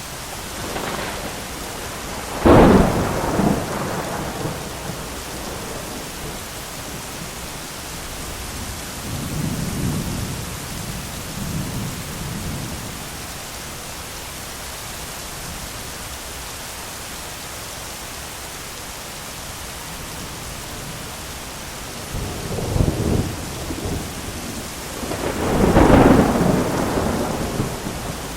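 Thunderstorm: steady heavy rain with thunder, a sharp close crack about two and a half seconds in, softer rumbles in the middle, and a building rumble with a loud peak near the end.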